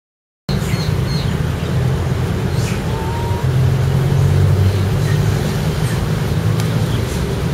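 Silence for about half a second, then a steady low rumble of road traffic that swells a little in the middle.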